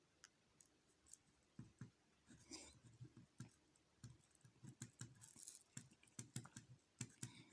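Faint, irregular clicks and light taps of a utensil against a glass jar as a seed-and-herb mixture is pressed into it.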